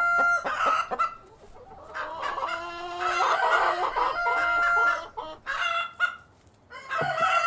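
A flock of chickens: hens clucking, with several drawn-out steady calls and a rooster crowing. There are short lulls about a second in and again near six seconds.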